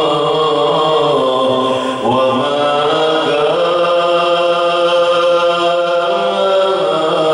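A solo male voice chanting an Arabic Islamic devotional song into a microphone, holding long, drawn-out notes with slow slides between pitches.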